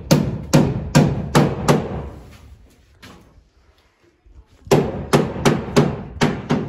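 Hammer blows at building work, struck in a steady rhythm of about two to three a second: five blows, a pause of about three seconds, then six more.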